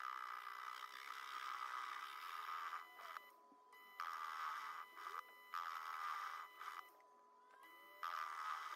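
Proxxon mini lathe facing the end of a steel rebar: a hissing cut that comes in four spells of one to three seconds, broken by short pauses, over a steady high whine.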